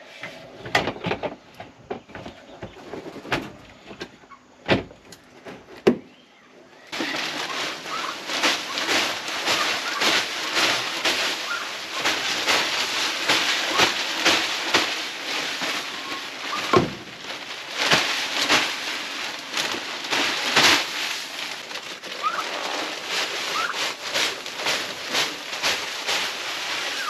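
Wood shavings being shaken out of a plastic bag onto a coop floor: a dense, steady rustling hiss with many small patters, starting suddenly about seven seconds in. Before that come only a few scattered knocks and clicks.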